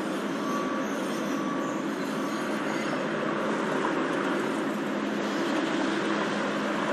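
Steady city background rumble of traffic-like noise, even in level throughout, with a faint thin whine coming and going in the first couple of seconds.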